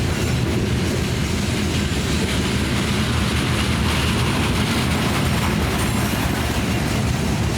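Freight cars of a BNSF rock train rolling past steadily, a continuous noise of wheels on rail.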